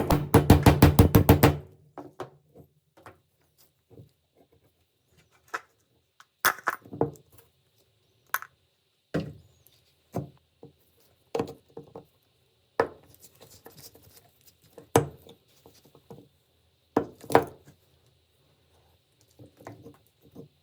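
Metal parts and tools handled on a workbench: a rapid run of loud taps in the first second and a half, then separate knocks and clicks every second or two.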